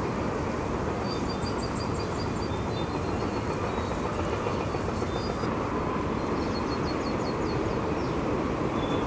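Distant steady rumble of an Airbus A350-900's Rolls-Royce Trent XWB engines at taxi power as the airliner taxis, with birds chirping in two short spells over it.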